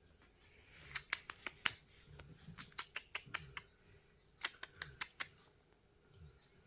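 A kitten at play making three quick runs of sharp clicks and taps, several in each run, as its claws or a toy knock on a hard surface.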